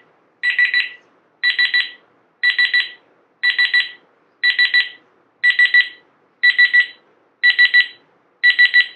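Reizen talking digital cooking thermometer beeping in its fast-test mode: a quick run of three or four high beeps about once a second, repeating steadily. The repeating beeps signal that it is taking a fast food-temperature reading.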